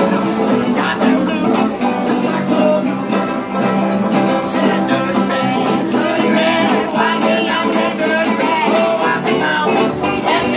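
Acoustic string band playing a tune: banjos and acoustic guitars strummed and picked together, with a voice singing along.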